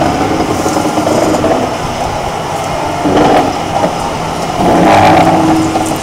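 SKD-914 pipe cutoff and beveling machine running, its ring turning the tracing tool posts around a large pipe: a steady mechanical drive hum that swells louder about three seconds in and again near the end.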